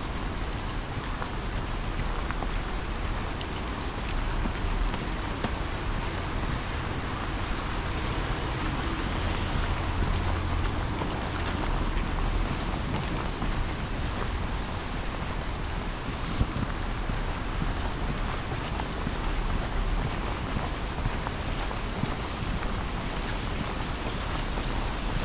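Heavy rain falling on pavement and puddles: a steady, even hiss of downpour.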